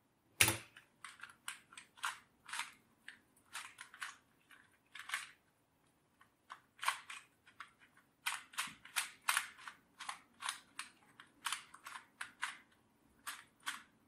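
A plastic 2x2 speed cube being turned quickly by hand: sharp, irregular clicks of its layers snapping round, several a second, with a short lull about midway. A single louder click about half a second in is the moment the solve timer starts.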